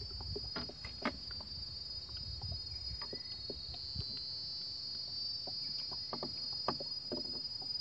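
Steady high-pitched drone of an insect chorus, with scattered faint clicks from handling fishing tackle.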